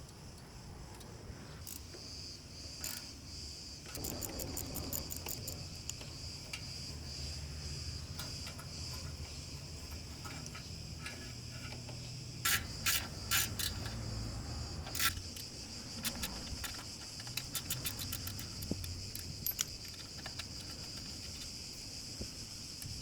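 Steady high-pitched insect chirring, with scattered sharp metallic clicks and taps from hand tools working on a motorcycle exhaust; a few louder clusters of clicks come about halfway through.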